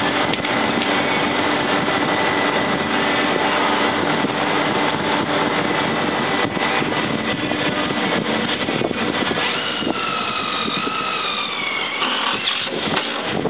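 Steady mechanical hum in a workshop. About ten seconds in, a cordless impact driver runs a bolt into a steel UTV skid plate with a whine that drops slightly in pitch, then rattles briefly as it hammers the bolt tight.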